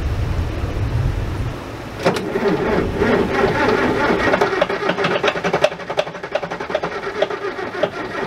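Bobcat 825 skid steer's starter cranking the engine on booster cables from a truck, starting about two seconds in as a fast, even chatter that does not catch. Wind buffets the microphone at first.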